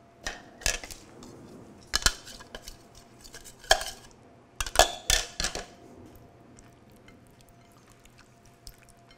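Sharp clinks and scrapes of a glass measuring jug and spoon against a ceramic bowl as sauce is poured over raw chicken wings, several in quick succession; after about six seconds it turns much quieter.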